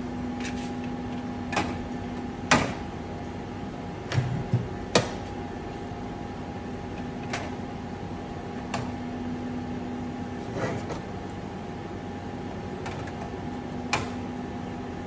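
IGT S2000 slot machine reel units being slid along their tracks and seated, giving a series of scattered clicks and clunks over a steady low hum.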